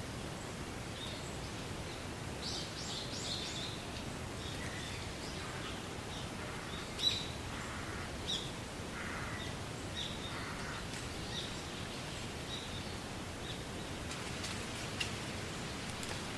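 Wind blowing through a stand of reeds, a steady rustling hiss, with scattered short bird chirps throughout; one brief chirp about seven seconds in stands out as the loudest.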